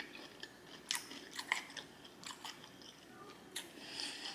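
A person chewing food with the mouth, giving faint, irregular wet smacking clicks.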